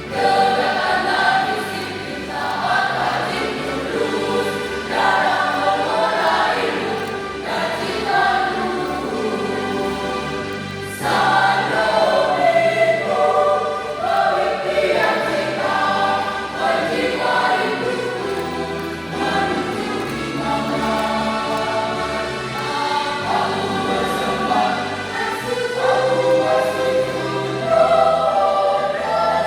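A junior high school choir singing together, with a step up in loudness about eleven seconds in.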